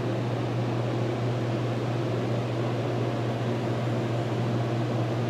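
A steady low hum with an even hiss behind it, room noise with no distinct events.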